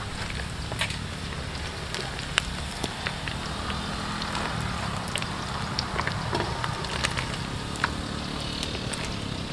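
Deep-frying oil in a wok, sizzling steadily with scattered sharp crackles and pops, as batter-fried baby frogs are lifted out.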